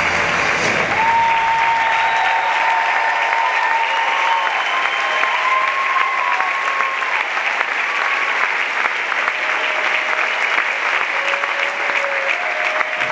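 Large audience applauding steadily, with the backing music's bass dropping out about a second in and a few long held tones over the clapping.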